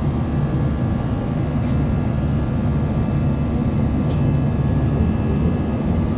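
Steady cabin drone of an Airbus A320-200 in cruise: a low, even rumble of jet engines and airflow heard from inside the passenger cabin.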